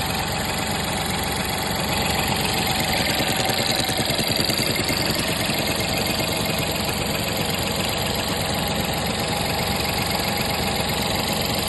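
VW 1.0 TSI three-cylinder turbo petrol engine (DLAA, 81 kW) idling steadily with a fast, even pulsing, and making the weird idle noise its owner is asking about.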